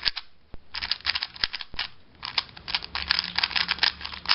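MoYu Weilong GTS2 M magnetic 3x3 speedcube being turned fast for its first turns out of the box: rapid runs of clicking layer turns, broken by short pauses.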